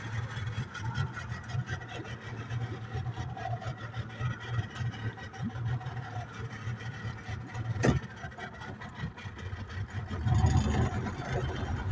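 Outboard motor of a small fishing boat running steadily. A single sharp knock comes about eight seconds in, and the engine gets louder about two seconds later.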